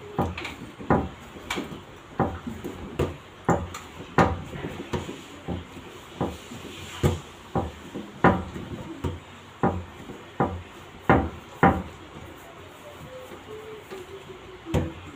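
Repeated thumps of pizza dough being pressed and rounded into balls against a stainless-steel table, about one to two a second, pausing near the end before one last thump.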